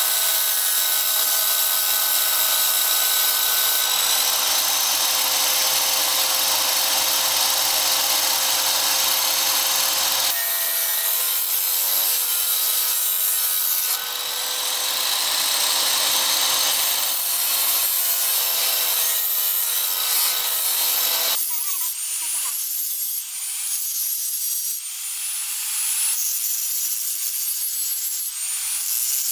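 Abrasive cut-off saw running with a steady whine while a small piece of steel is held against its wheel and ground, the sound breaking off briefly twice. About two-thirds of the way in it gives way to a hand-held angle grinder grinding leaf-spring steel, its whine wavering up and down with the load.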